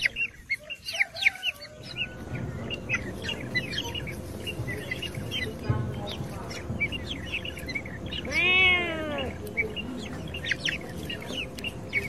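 Birds chirping rapidly and irregularly throughout, with short high chirps. About two-thirds of the way through comes a single loud drawn-out call, about a second long, whose pitch rises and then falls.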